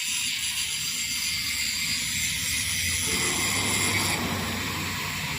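Steady mechanical drone: a low hum under a strong hiss with several thin, steady whining tones.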